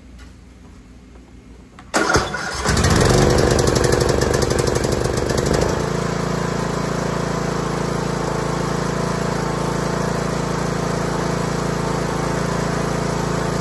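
Briggs & Stratton 17.5 hp single-cylinder overhead-valve riding-mower engine cranking on its electric starter and catching about two seconds in. It runs fast and loud for a few seconds, then settles about six seconds in into a steady, even run, purring with no sign of the runaway the customer reported.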